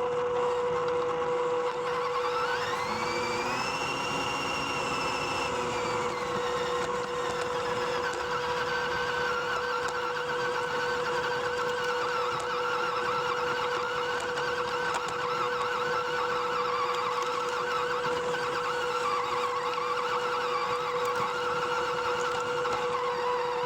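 MN82 RC off-road car's small electric motor and gears running: a steady hum throughout, with a whine that rises in pitch and falls back a few seconds in, then a rougher whirring as it drives on.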